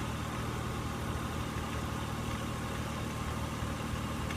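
Car engine idling steadily just after an oil change, circulating the fresh oil before the level is rechecked.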